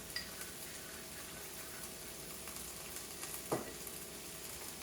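Steady sizzle of chicken browning in a frying pan, with a spoon stirring sauce in a small bowl and a single knock about three and a half seconds in.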